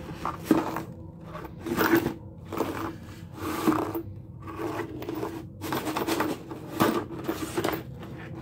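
Cardboard parcel being handled: irregular rustling and scraping of cardboard and packing tape, with a few sharp knocks.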